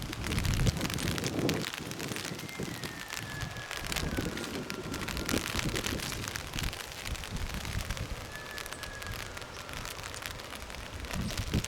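Two faint, long whistled calls of a distant wild animal, each falling slowly in pitch, the first about two seconds in and lasting about three seconds, the second shorter, near the three-quarter mark. Under them runs a steady crackling, rustling noise with a few low knocks.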